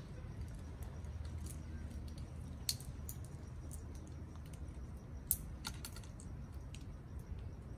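Amazon parrots cracking pistachio shells in their beaks: scattered small clicks and crackles, with two sharper cracks about a third of the way in and again about two-thirds in.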